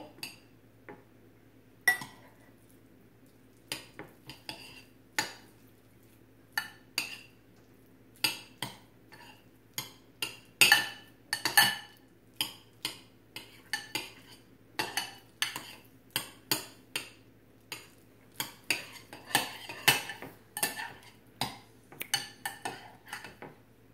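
Metal fork clinking and scraping against a glass bowl as avocado is mashed. A few scattered taps at first, then quick, repeated strokes from about eight seconds in.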